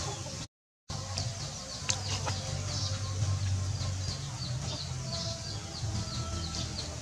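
Birds chirping in quick, high, repeated notes, several a second, over a steady low hum. The sound cuts out completely for a moment about half a second in.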